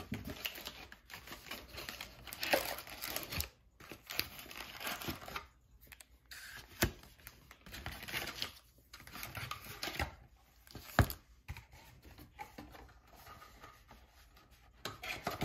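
Cardboard trading-card box being emptied and its wrapped packs handled: irregular tearing, crinkling and rustling, with a few sharp clicks.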